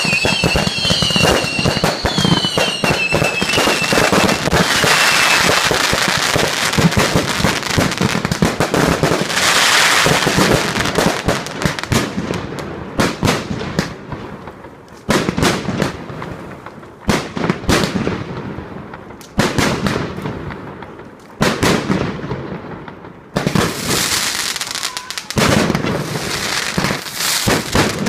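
Fireworks display: warbling whistles over dense crackling and banging in the first few seconds, then single loud bangs with echoing tails every second or two, building back into a dense barrage of bangs near the end.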